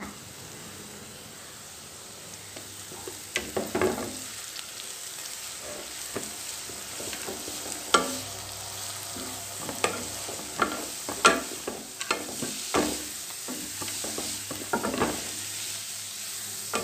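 Onions and chopped chaya (tree spinach) leaves sizzling in hot oil in a nonstick pan, stirred and tossed with a plastic spatula. Irregular scrapes and knocks of the spatula against the pan sound over the steady sizzle.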